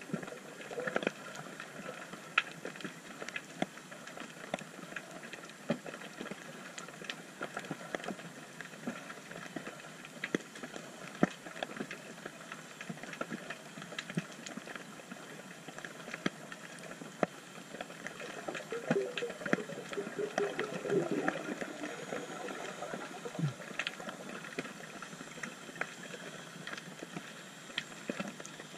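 Underwater ambience heard through an action camera's housing: a steady crackle of scattered clicks and pops, with a brief low burbling about two-thirds of the way through.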